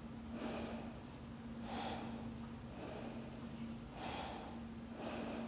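A woman breathing slowly and audibly while holding a yoga stretch: four soft breaths in and out, each about a second long, over a faint steady hum.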